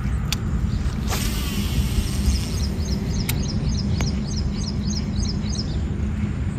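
Steady low rumble with a bird repeating a short high chirp about three times a second, stopping near the end. About a second in, a hissing rush comes up and fades over a second or so, and a few sharp clicks stand out.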